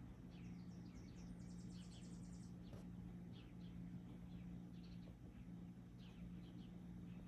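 Birds chirping faintly: many short, falling chirps scattered throughout, with a quick, very high trill about one and a half seconds in, over a steady low hum.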